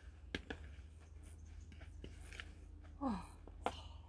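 A few faint clicks of the batter bowl and spoon being handled, then about three seconds in a woman's short exclamation falling in pitch, a startled "ooh", with another click just after.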